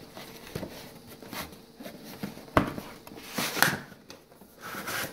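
Cardboard rustling and scraping as a graphics card's retail box is worked out of a cardboard shipping box, with a sharp knock about two and a half seconds in and louder scraping just after.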